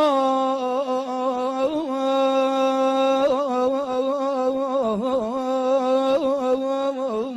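A solo male voice singing an Iraqi funeral lament, holding one long wordless note with wavering ornaments and bends, unaccompanied.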